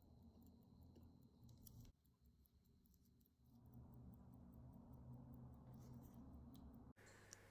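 Faint, rapid, even ticking of a running 1920s Longines watch movement's escapement, with its balance swinging. Soft handling rumble comes in about halfway through as the movement is held in gloved fingers.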